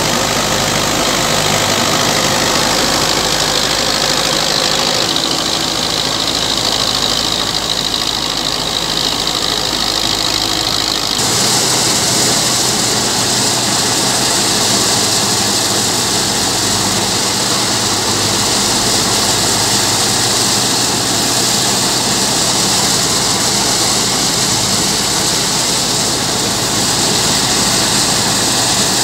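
Belarus 510 tractor's four-cylinder diesel engine running steadily under load, belt-driving a wheat thresher, mixed with the thresher's continuous rushing noise. About eleven seconds in the balance changes abruptly, with more of the high hiss.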